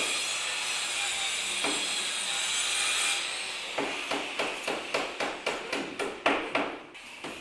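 Sawing through wood with a steady rasping noise for about three seconds, then a hammer driving into wood in a quick even run of blows, about three a second.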